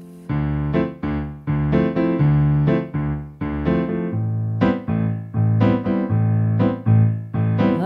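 Piano-voiced keyboard playing an instrumental passage of struck chords, about two a second, each one dying away before the next.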